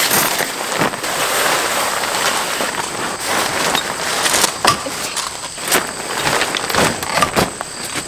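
Decathlon 2 Seconds Easy pop-up tent being pulled from its bag and springing open: a long dense rustle of nylon tent fabric, then several shorter, sharper rustles and snaps as the tent is handled.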